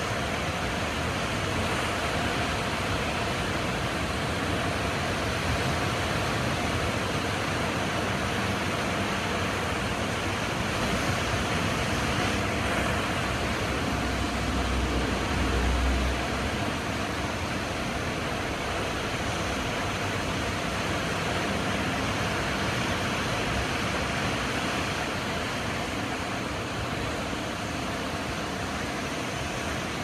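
Ocean surf breaking over rock ledges and washing through the channels between them: a steady rushing noise, with a brief low rumble about halfway through.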